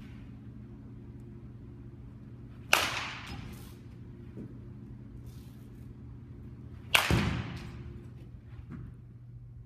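Baseball bat hitting tossed balls twice, about four seconds apart. Each contact is a sharp crack with an echoing tail from the large indoor hall.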